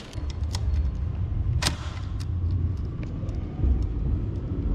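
Bicycle rolling over tiled pavement: a heavy low rumble, with a few sharp rattling clicks from the bike and its hanging key ring.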